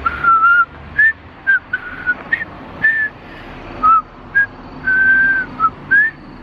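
A person whistling: a halting string of short notes of a few different pitches, with one longer held note about five seconds in. This is a beginner still learning to whistle, getting the notes out but not yet in control of them.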